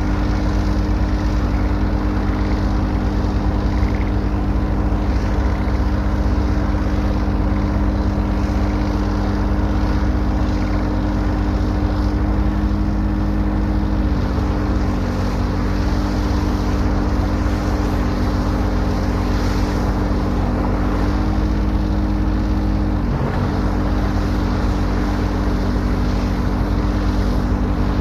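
An excavator's engine running steadily with a low drone. Its pitch shifts slightly about halfway through and again near the end.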